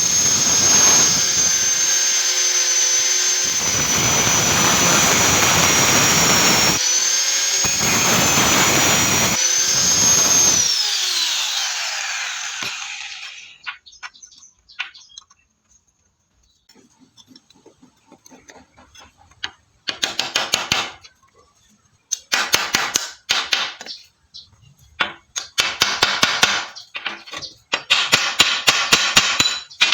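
A power grinder running with a steady high whine, its pitch wavering slightly, then switched off and spinning down about eleven seconds in as the whine falls away. After a few faint ticks come four short loud bursts of rapid repeated scraping strokes on metal.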